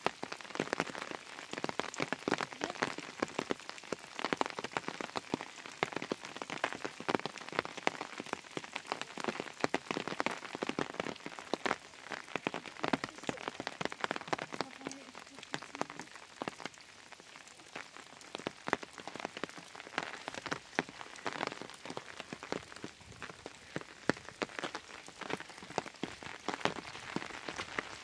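Rain falling on a surface: a dense, irregular patter of many small drops, a little softer for a few seconds around the middle.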